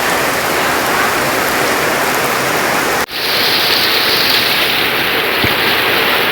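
Heavy rain falling steadily. About three seconds in there is a sudden break, after which the rain continues with a slightly duller sound.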